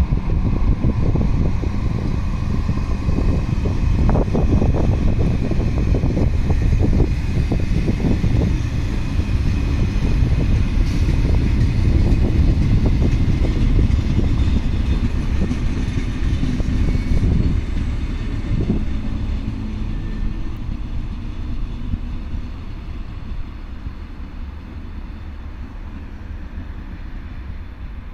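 Locomotive-hauled passenger train departing, its coaches rolling past with a steady low rumble and irregular wheel clicks over the rail joints. The rumble fades away over the second half as the train pulls out.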